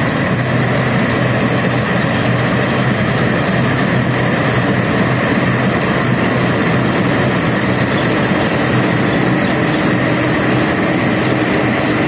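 New Holland 8070 combine harvester running steadily while cutting ripe rice: its diesel engine and threshing machinery make a continuous loud hum with a steady higher whine.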